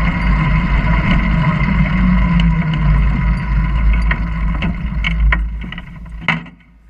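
Junior dragster's single-cylinder engine running at low speed, heard from onboard as the car rolls slowly, with scattered clicks and knocks. The sound dies away over the last second or so, with one sharp knock just before it falls.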